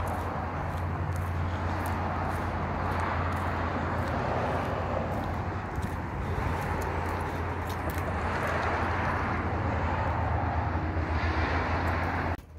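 Steady outdoor background noise with a constant low hum, which cuts off suddenly near the end.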